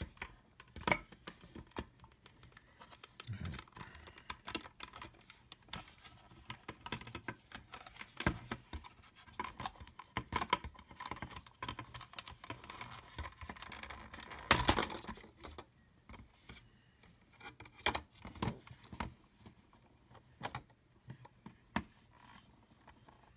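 Opened plastic housing and parts of a Black and Decker cordless pet vacuum being handled: irregular plastic clicks, taps and scrapes, with a louder clatter about fourteen seconds in.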